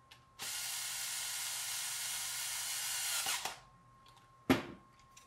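Cordless electric screwdriver running steadily for about three seconds, driving in a screw, starting and stopping abruptly. A single sharp click follows near the end.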